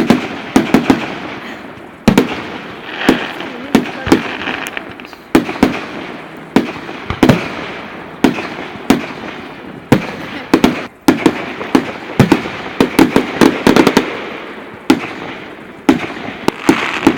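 Public firework display: shells bursting overhead in a rapid, continuous sequence of sharp bangs, many in quick clusters, each followed by a rolling echo and crackle.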